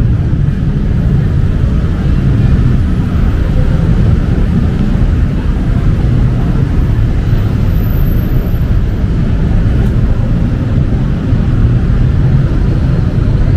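Steady low rumble of city road traffic, engines running continuously with no distinct single event.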